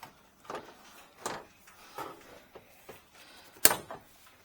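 Plastic front trim being handled and pressed into place on a pickup's front end: a series of light knocks and clicks, ending in one sharp, loud snap a little before the end.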